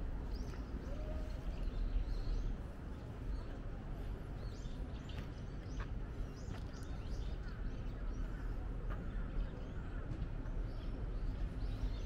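Outdoor ambience: a steady low rumble with scattered short bird chirps and a few light clicks.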